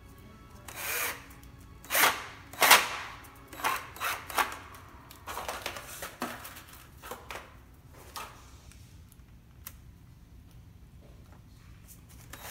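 Cordless drill/driver run in short bursts, driving screws through a license plate into a license plate flipper frame. The loudest bursts come about two and three seconds in, followed by lighter clicks and a quieter stretch, with another burst starting right at the end.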